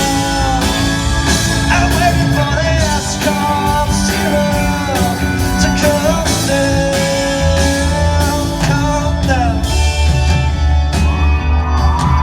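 Live rock band playing with a male lead singer holding long, gliding sung notes over guitar, bass and drums.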